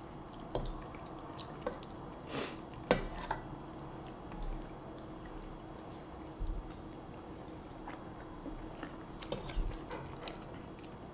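Quiet eating: metal forks now and then tapping and scraping on ceramic bowls, with soft chewing, over a faint steady hum.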